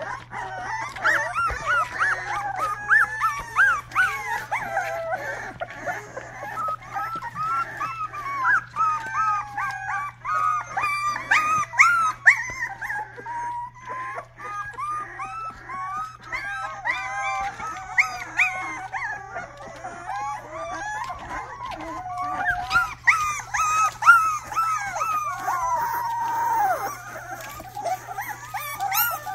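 A litter of young Rottweiler puppies whining and squealing together in many overlapping high-pitched cries that rise and fall, over a steady low hum.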